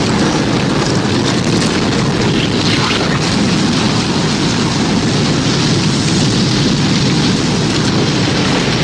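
Tornado sound effect: loud, steady wind rumble, a dense low noise without breaks or rising and falling siren tones.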